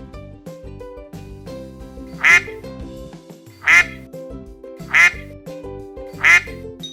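A duck quacking four times, each quack short and loud and spaced about a second and a half apart, over light background music.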